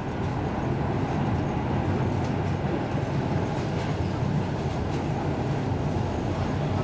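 Steady rumble of a passenger train running at speed, heard from inside the carriage: wheels on the rails and the coach's running noise, with a few faint clicks.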